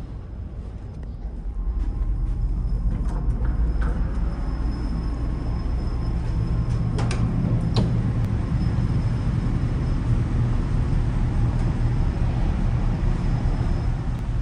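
Steady low engine rumble that grows louder about two seconds in, with two sharp clicks a little past the middle.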